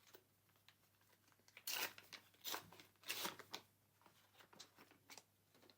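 Foil booster pack wrapper being torn open and crinkled: a few short tearing, crackling bursts, the loudest about two to three seconds in, then lighter rustles.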